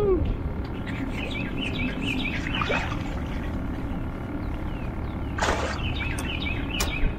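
A songbird singing runs of short, quick chirping notes, twice, over steady low background noise, with a short burst of noise about five and a half seconds in.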